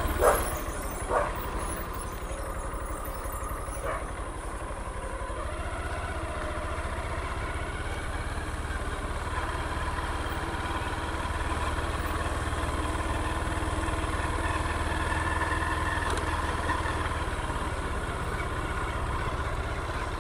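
Honda XRE 190 single-cylinder motorcycle engine running steadily at low speed while riding slowly, growing a little louder in the middle.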